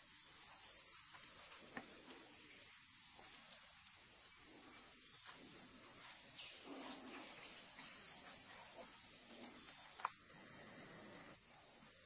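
Insects keep up a steady high-pitched chirring drone that swells twice. Two sharp clicks come late on.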